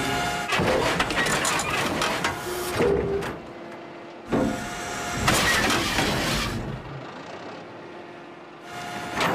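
Excavator engine and hydraulic boom machinery working the arm and bucket, in three loud bursts a few seconds long with quieter gaps between.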